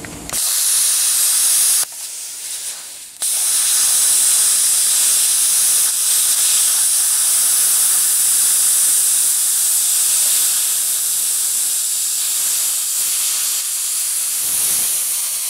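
Plasma cutter running, a loud steady hiss of air and arc as it shaves an old weld out of a rusty steel frame rail. A short run of about a second and a half, a brief pause, then one long continuous cut.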